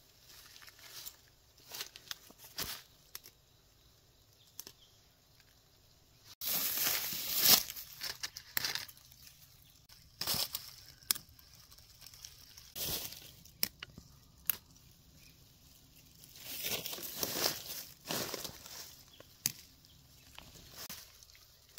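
Irregular rustling, crackling and tearing of leaves and plant stems handled by hand, in short bursts, with a sudden louder stretch about six seconds in and another busy stretch near the end.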